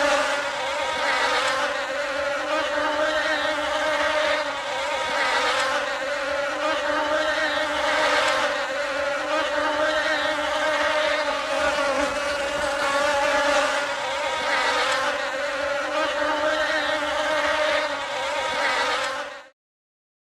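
Bee buzzing in flight: a steady, pitched wingbeat hum that swells and fades a little, then cuts off suddenly near the end.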